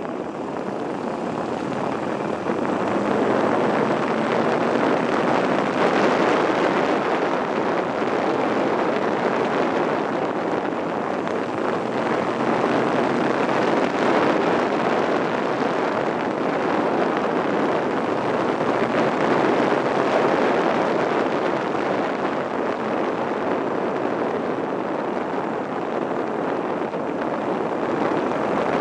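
Steady wind rushing over a handlebar-mounted camera's microphone on a Buell XB9SX motorcycle at road speed, with the bike's air-cooled V-twin engine running faintly underneath.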